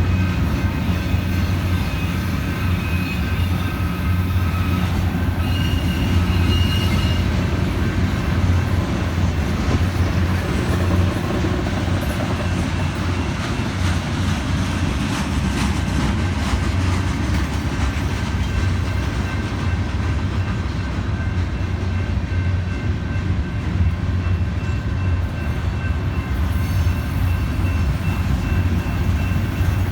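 Union Pacific manifest freight train's cars rolling past with a steady, loud rumble of wheels on rail and some clickety-clack, with faint high squeal tones from the wheels in the first several seconds.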